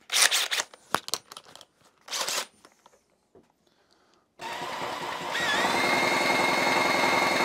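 Two short rasping strokes, then a small motor whirring steadily with a high whine that rises about a second after it starts and then holds, as the 1966 British Seagull two-stroke outboard is spun over to check for spark at its removed plug.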